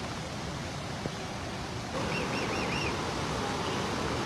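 Swollen flood river rushing, a steady roar of water that grows louder about two seconds in. Four quick high chirps sound over it just after that.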